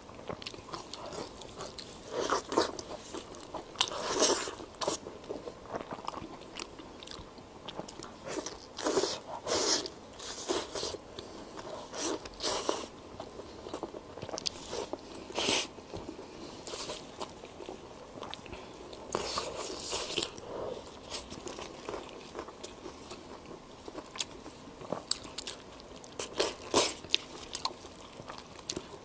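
Close-miked eating of braised pork knuckle: biting and chewing the meat and skin, with sharp, irregular mouth noises, a few loud ones every couple of seconds.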